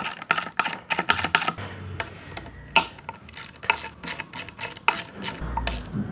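Socket ratchet wrench clicking in quick, uneven runs as an 8 mm socket is worked back and forth to snug a motorcycle mirror mount.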